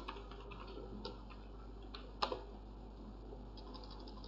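Faint typing on a computer keyboard: irregular key clicks, with one sharper click about two seconds in.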